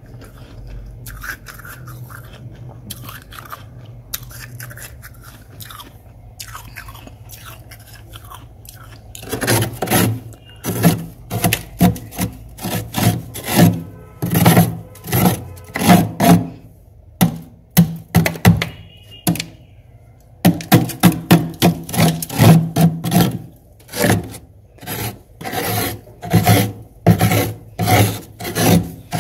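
Thick freezer frost being scraped off the compartment walls by hand in repeated rasping strokes, one to two a second. The strokes start about nine seconds in, after faint scattered crackling, and pause briefly in the middle.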